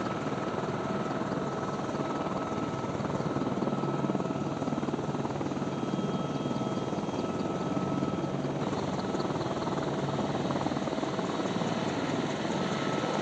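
AH-64 Apache attack helicopter hovering low: steady rotor and turbine engine noise with a thin, high, even whine.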